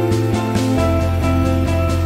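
Background music with a steady beat; the bass moves to a new note a little under a second in.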